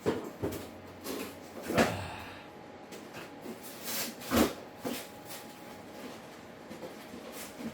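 A string of irregular knocks and clunks from objects being handled and set down, with a brief rustle about two seconds in.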